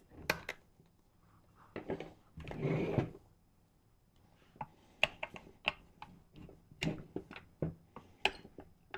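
Clicks, knocks and a short scrape as the plastic cover is worked off a Stihl MS201T chainsaw and tools are handled, with the loudest scrape about three seconds in and a run of quick clicks later on.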